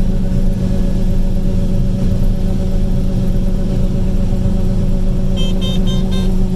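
Combine harvester running steadily while harvesting corn, heard from inside the cab: a constant engine and machinery drone with a steady hum. Near the end comes a rapid run of short electronic beeps.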